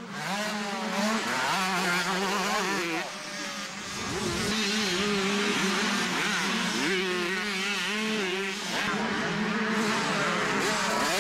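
Suzuki motocross bike engine revving hard, its note rising and falling over and over as the throttle is opened and closed, with a brief quieter dip about three seconds in. A steady low hum runs underneath.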